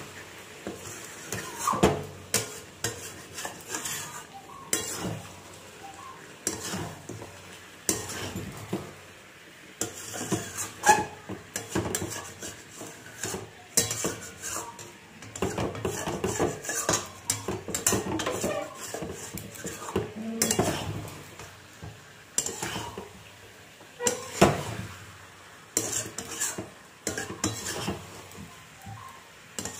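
Metal spatula scraping and knocking irregularly against a metal kadai as chicken curry with potatoes is stirred and fried down. The oil has already separated from the masala.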